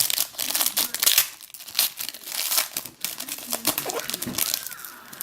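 Foil wrapper of a trading card pack crinkling and tearing as it is ripped open by hand, in a run of short crackles.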